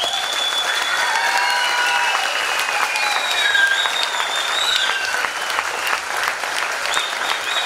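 Applause from the audience and the children on stage, with several high voices holding drawn-out cheers over the clapping.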